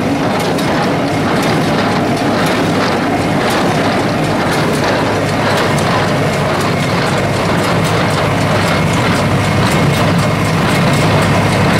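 John Deere 336 square baler running, its mechanism clattering in a quick regular rhythm of clicks, over the steady drone of the John Deere 3020 tractor's engine.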